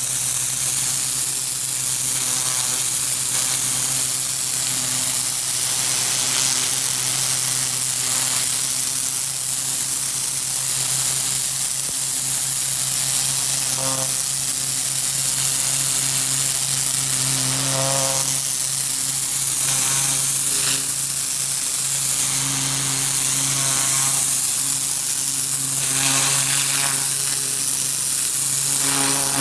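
Pressure washer jet blasting a concrete walkway at close range, cleaning off grime: a loud, steady hiss of spray with a steady low hum beneath it.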